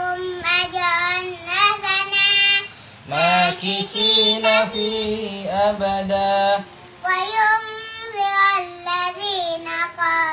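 A young boy's high voice chanting a melodic recitation with long held, gliding notes. From about three seconds in, a deeper adult voice chants along with him for a few seconds.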